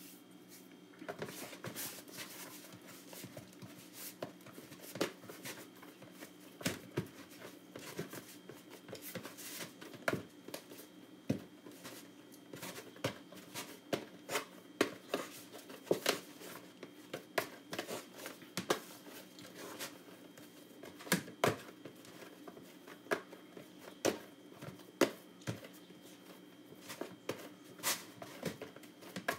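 Hands kneading flour dough in a plastic tub, making irregular slaps and knocks about once or twice a second as the dough is pressed and turned against the tub.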